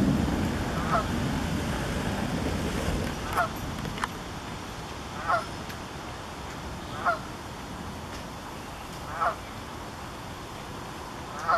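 Canada goose honking: six short single honks, about one every two seconds, over a steady wash of wind and water. A low rumble fades away over the first few seconds.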